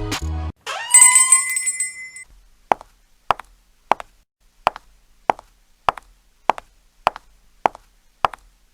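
Background music cuts off, followed by a short shimmering chime with rising ringing tones about a second in, then a steady series of about ten short ticks, roughly one every 0.6 seconds, like an added clock-tick sound effect.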